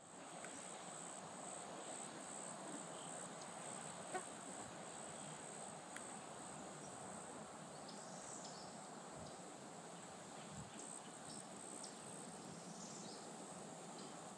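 Faint field ambience: insects trilling in a steady high buzz over a soft even background hiss, with a small click about four seconds in.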